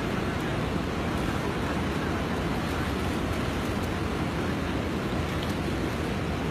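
Steady rush of fast-flowing floodwater: a constant, even noise with no breaks.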